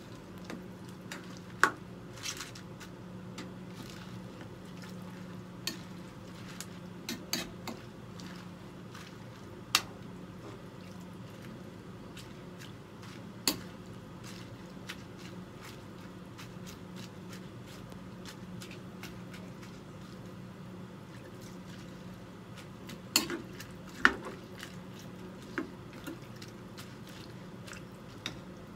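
Metal spoon clinking now and then against a frying pan while stirring wet Chinese cabbage and komatsuna, about ten sharp clinks spread out, with soft wet stirring between them. A steady low hum runs underneath.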